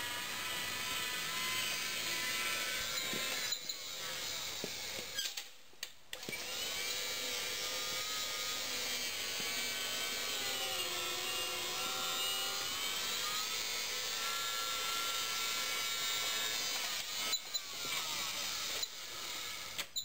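Homemade electric garden tractor's drive motor whining as it drives over a dirt mound, its pitch rising and falling with speed and load. The whine stops for about a second around five seconds in, then resumes, with short breaks near the end.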